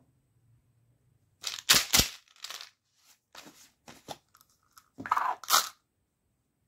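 Plastic Cadbury Gems Surprise ball being handled and twisted open by hand: sharp plastic clicks, scraping and crackling in two loud clusters, about a second and a half in and again about five seconds in, with smaller clicks between.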